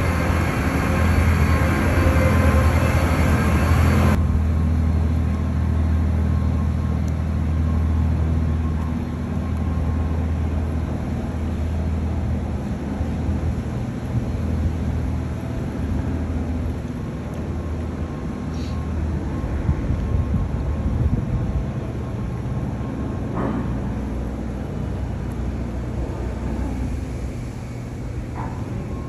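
Boat engine running steadily under way, with water rushing past the hull. About four seconds in, the rush and hiss stop abruptly, leaving a quieter, steady low rumble with a few faint knocks.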